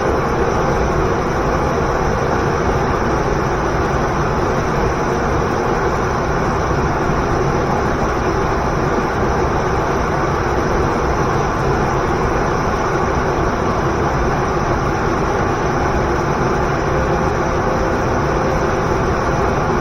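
Steady, loud roar of a waterfall and the river below it, an even rushing noise with no breaks.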